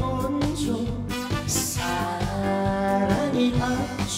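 Instrumental break in a trot song: backing music with sustained melody lines over a steady beat.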